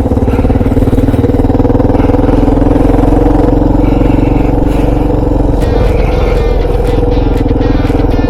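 Kawasaki KLR650's single-cylinder four-stroke engine running at a steady speed under way, its note dropping briefly about six seconds in before picking back up.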